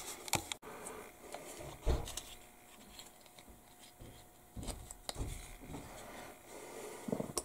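Hands handling and fitting plastic model-kit parts on a cutting mat: scattered light clicks and rubs, with dull thumps about two seconds in, around the middle and just before the end.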